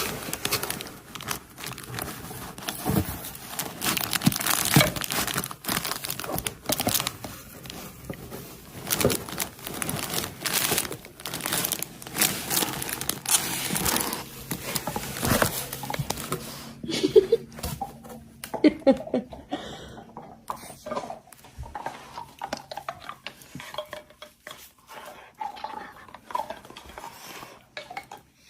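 Crinkling and rustling: dense short crackles for about the first 17 seconds, then sparser ones.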